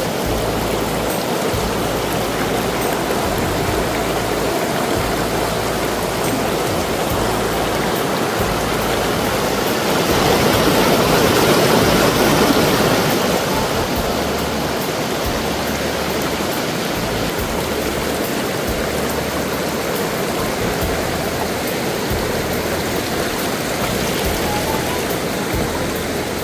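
Stream water flowing in a steady rush, swelling a little louder for a few seconds near the middle.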